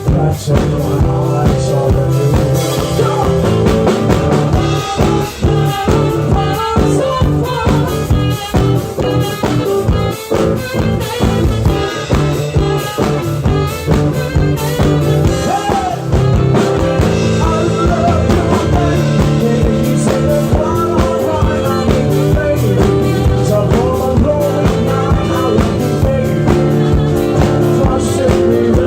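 Rock-style band music, with guitar and drums, playing without a break.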